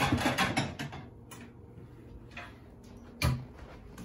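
Clattery handling noise in the first second, then quiet room tone and a single sharp knock a little after three seconds in.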